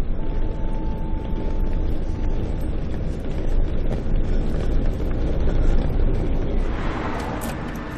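A low, steady rumble with a faint thin tone in the first couple of seconds and a hissing swell that builds near the end.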